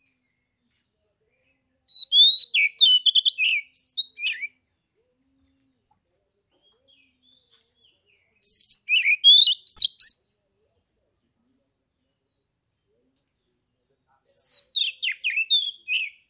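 Oriental magpie-robin (kacer) singing its loud, full ngeplong song in three short bursts of quick whistled notes and slurred glides, a few seconds of silence between each.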